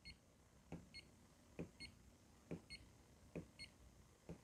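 Mode button on a ZOYI ZT-DQ02 handheld LCR meter pressed about once a second: five faint clicks, most followed by a short high beep from the meter as it steps to the next measurement mode.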